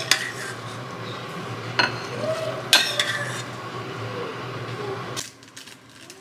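Stainless steel pot clanking against the rim of a ceramic bowl as noodles are shaken out through its strainer lid: sharp metal knocks at the start and about two and three seconds in, over a steady low hum. After about five seconds it gives way to quieter light clicks of a fork stirring noodles in a bowl.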